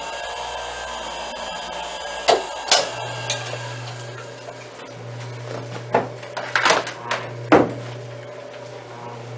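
A few sharp knocks and clicks, two about two seconds in and a cluster later on, over a steady low hum that sets in about three seconds in.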